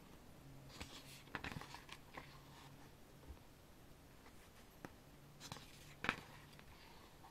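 Faint rustling and sliding of the glossy paper pages of a photobook being turned by hand, in short bursts about one to two seconds in and again near six seconds, the last the loudest.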